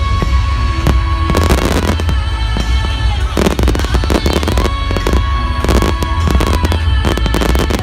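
Fireworks going off in rapid clusters of bangs and crackles, heard over loud music with a heavy, throbbing bass.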